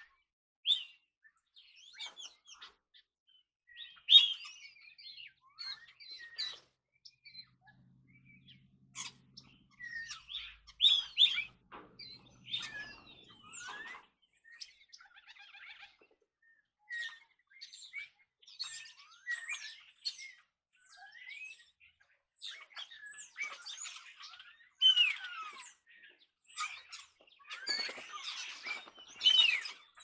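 A flock of European starlings calling: scattered chirps, clicks and sliding whistles in short irregular bouts, growing busier near the end.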